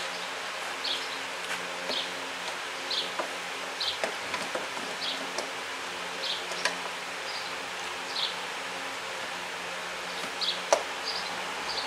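A steady, buzzing low hum, with light clicks and small plastic squeaks about once a second as parts are handled while a headlight assembly is fitted.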